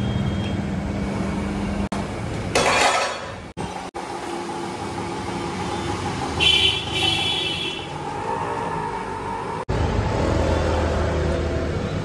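Tyre-shop and street background sound in several short cuts, with traffic running. A short burst of hiss comes about three seconds in, and a brief horn sounds about six and a half seconds in.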